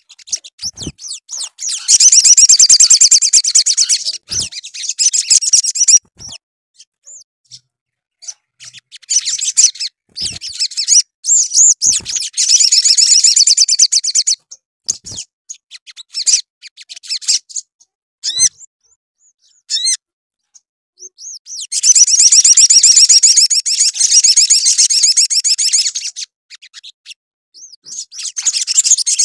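Male olive-backed sunbird singing: four long bursts of rapid, high-pitched trilling, each a few seconds long, with short chirps in the gaps between.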